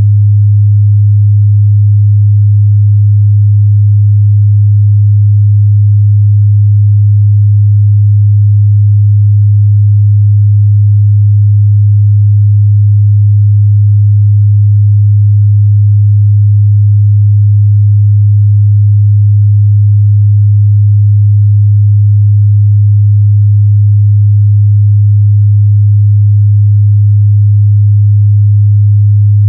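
A steady 103 Hz sine-wave test tone, a single low hum held at constant pitch and level.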